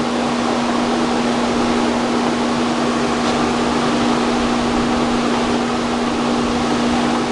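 Steady mechanical hum with an even, unchanging drone and a constant low tone throughout, with no starts or stops.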